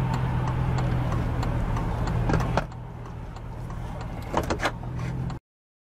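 Steady low road and engine hum inside a car driving on a highway. It drops in level about halfway through, with a few sharp clicks just before the drop and near the end. The sound then cuts off abruptly to silence.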